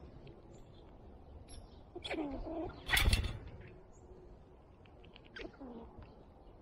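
Backyard birds chirping, with a lower call gliding down in pitch about two seconds in and again about five and a half seconds in. A short, loud burst of rapid fluttering clatter comes about three seconds in.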